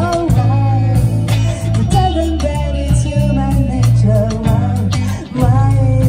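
A live band plays amplified, with electric guitars, a strong bass line, a drum kit and a singer. The level drops briefly about five seconds in.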